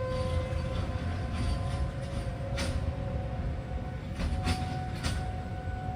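Outdoor warning siren holding a steady tone over a low rumble, with a few sharp clicks.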